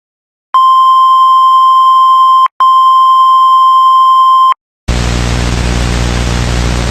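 Emergency alert tone: two long electronic beeps of one steady pitch near 1 kHz, each about two seconds, with a short break between. About five seconds in, a loud harsh buzzing static takes over.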